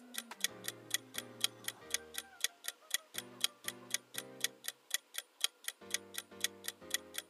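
Background music with a steady ticking beat, about four ticks a second, under short pitched notes and a bass line.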